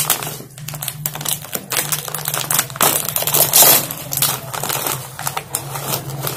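A crinkly plastic snack bag being opened and handled, giving a dense run of crackles that is loudest about midway.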